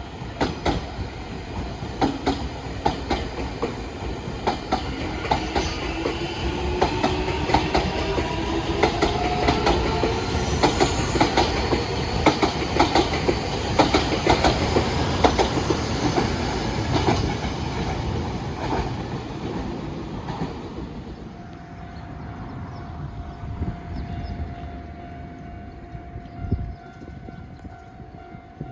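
An electric train passing close by, its wheels clicking rhythmically over the rail joints, with a gliding whine as it goes. The passing dies away after about twenty seconds, leaving a steady tone.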